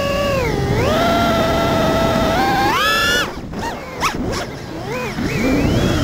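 FPV racing quadcopter's brushless motors and props whining, the pitch rising and falling with the throttle. About halfway through the throttle drops and the whine breaks up into a fluttering prop sound, then climbs back up near the end.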